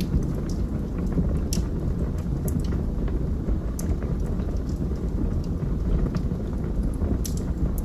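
Wood fire burning in a fireplace: a steady low rumble with scattered sharp crackles and pops. The louder pops come about a second and a half in and twice near the end.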